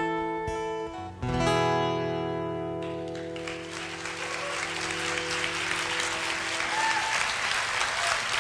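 Acoustic guitar strumming the song's last chords, with the final strum ringing out for several seconds. An audience starts applauding about three seconds in, and the clapping grows louder.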